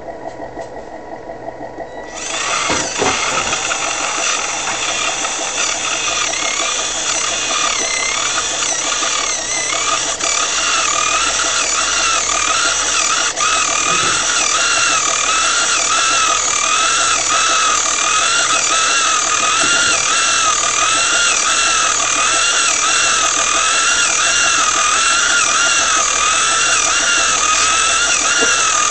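Small electric air compressor on an RC Scania wrecker model, running to work its air dampers. It is a steady, high whine that starts about two seconds in, and its pitch wavers about once a second.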